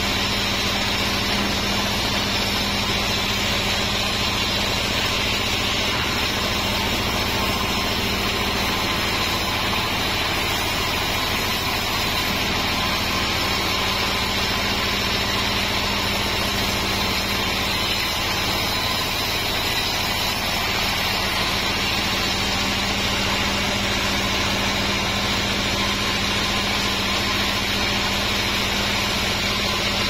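Vertical band sawmill running steadily, its blade ripping lengthwise through a large wadang log over the constant hum of the mill's drive.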